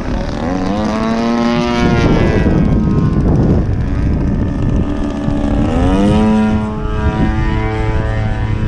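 Radio-controlled model airplane's propeller engine running in flight overhead. The engine pitch rises about half a second in, falls back a little after two seconds, and climbs again near six seconds as the throttle or the plane's passes change.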